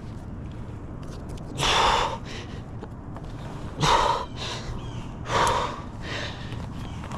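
A person breathing hard from exertion while climbing down a tree trunk, with three forceful breaths about two seconds apart and fainter breaths between them.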